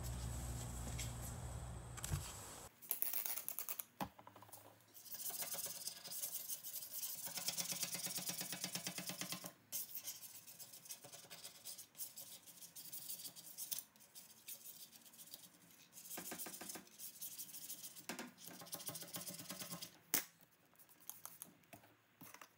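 Razor blade scraping cured urethane off a car's rear window glass wetted with Windex, in repeated short scraping strokes with brief pauses. A low steady hum runs for the first couple of seconds, then stops.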